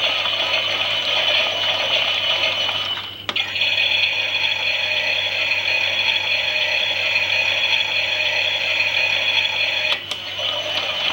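Klein toy Miele washing machine running, its small motor and plastic gears whirring and rattling as the drum turns. The sound cuts out briefly about three seconds in and again near the end, then starts again.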